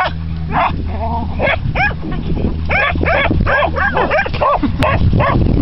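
A dog barking over and over, about three barks a second, over a steady low hum that stops about four and a half seconds in.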